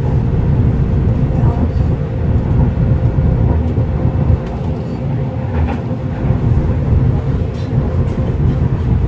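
Cabin running noise of a Busan–Gimhae Light Rail train cruising: a steady low rumble with a faint constant hum.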